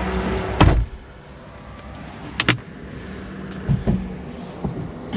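Camping car at a standstill: a low rumble runs up to a loud thump just under a second in, then it goes quieter, with a few sharp clicks and knocks, like doors and fittings being handled.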